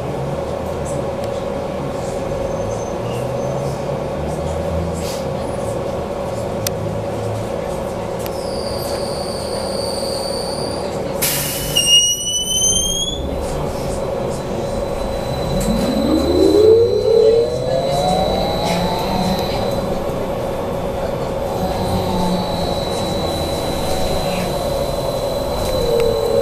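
Ride inside a BKM 43300D trolleybus: a steady electrical hum over low running rumble. A few short high-pitched tones come about a third of the way in. Just past halfway the electric traction drive's whine rises in pitch as the trolleybus speeds up, and near the end it falls again as it slows.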